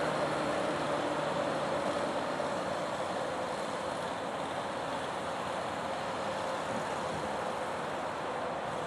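Max IV 6x6 amphibious ATV's engine running steadily as it drives through deep swamp water.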